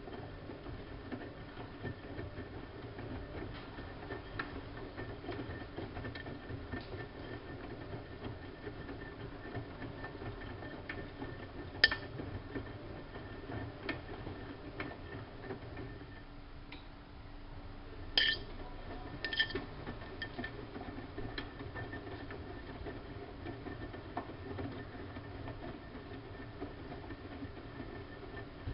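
Siemens Siwamat IQ front-loading washing machine running a wash, its drum turning with a steady motor hum and churn, broken by scattered sharp clicks. About halfway through the drum stops briefly, then starts again.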